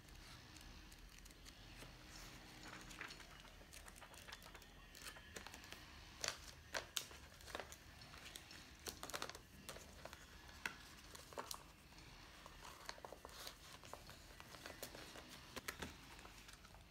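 Plastic packaging crinkling and rustling in the hands as a diary in a clear plastic sleeve is handled beside a plastic pouch: a string of short, sharp crackles starting a few seconds in.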